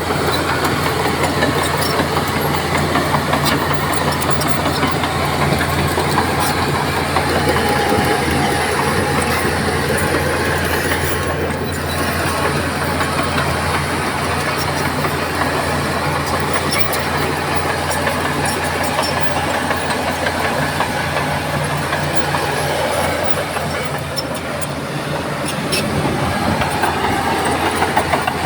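Crawler bulldozer's diesel engine running steadily, with the clanking of its steel tracks as it moves. The engine eases off a little past the three-quarter mark and picks back up near the end.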